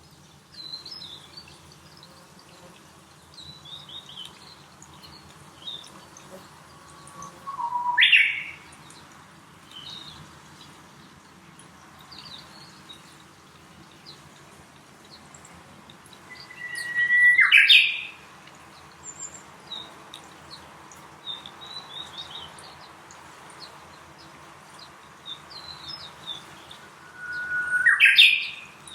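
Small birds calling: soft, high chirps throughout, and three loud calls about ten seconds apart, each rising sharply in pitch.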